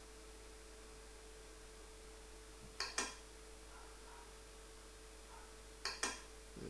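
Computer mouse clicked twice, each click a quick press-and-release pair of ticks, about three seconds apart, over a faint steady hum.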